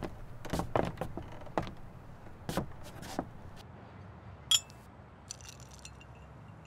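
Glassware clinking: a run of sharp taps and knocks over the first three seconds, then one bright ringing clink about four and a half seconds in, and a few light clinks a second later.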